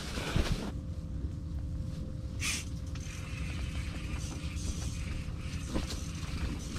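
Steady low rumble of storm wind against the fabric ice-fishing shelter, with one short hiss about two and a half seconds in and a few light clicks.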